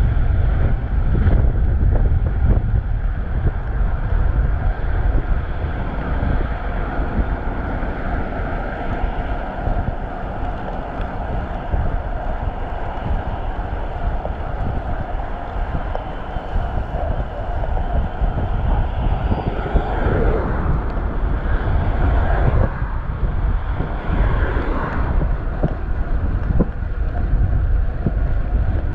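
Wind buffeting a chest-mounted action camera's microphone on a moving bicycle, a steady low rumble over the hiss of road traffic. Passing motor vehicles swell louder twice in the last third.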